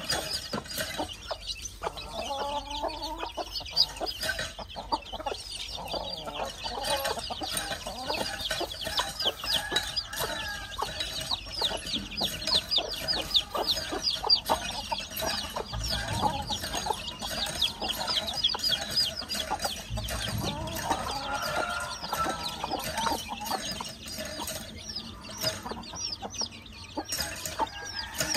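O Shamo hen clucking at intervals while her chicks peep in a rapid run of short, high chirps.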